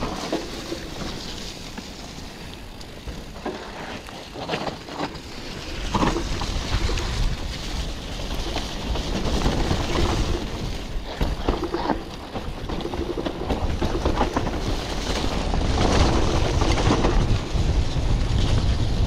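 Mountain bike on a dirt trail: wind rushing over the camera microphone and a low tyre rumble that builds about six seconds in, with scattered knocks and rattles from the bike.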